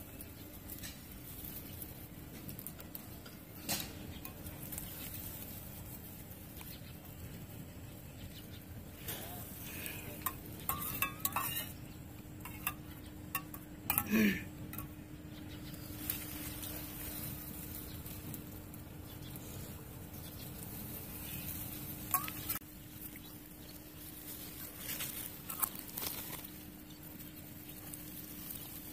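Scattered light clicks and rustles over a steady low hum, with one short vocal sound about fourteen seconds in.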